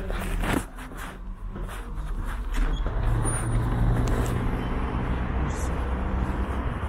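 A motor vehicle running close by on a city street, its low engine sound building about two seconds in and holding steady, with a few sharp clicks near the start.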